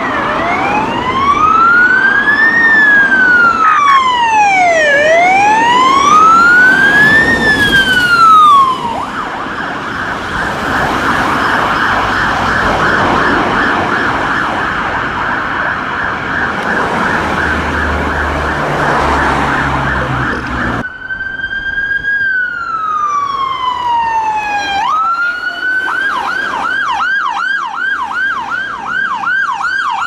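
Ambulance sirens. First a slow wail rising and falling about every two and a half seconds, switching about nine seconds in to a fast yelp. After a cut, another ambulance's siren gives one long falling sweep, rises again and goes into a fast yelp of about three pulses a second.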